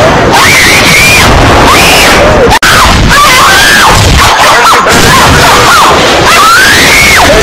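Extremely loud, heavily distorted screaming voice: long high shrieks that are held and then drop sharply in pitch, over a constant wash of noise. The sound cuts out for an instant about two and a half seconds in.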